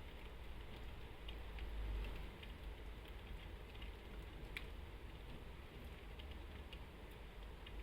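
Raindrops ticking lightly and irregularly on window glass over a low, steady rumble of distant traffic, with one sharper tick about four and a half seconds in.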